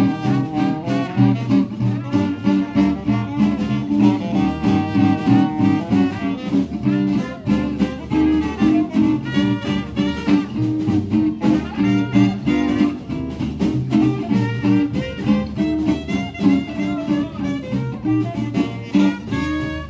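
Live swing jazz from a small band of trumpet, saxophone, guitar, bass and drums, playing at a steady swing beat.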